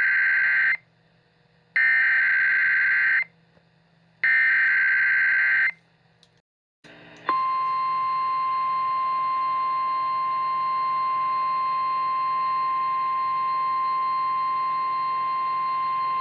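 Emergency Alert System SAME header: three warbling, screeching data bursts about a second apart, the first already sounding. After a short pause comes the NOAA Weather Radio warning alarm, one steady high-pitched tone held for about nine seconds, over a faint low hum.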